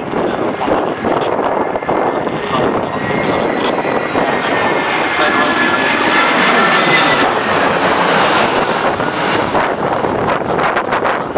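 Landing airliner's engines passing close. Their whine swells to a peak about seven seconds in and then fades, over steady wind rushing on the microphone.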